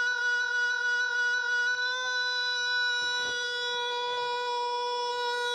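A man's voice holding one long sung note on the word "Nacho", steady in pitch throughout.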